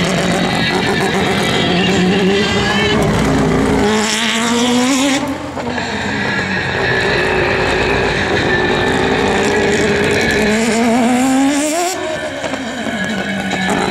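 Mazda 787B's four-rotor R26B rotary engine running hard as the race car laps, its pitch climbing under acceleration and falling off twice, about five seconds in and again near the end.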